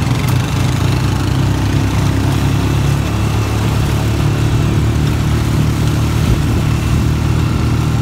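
Four-wheeler ATV engine running steadily at low speed while being ridden, a constant low hum.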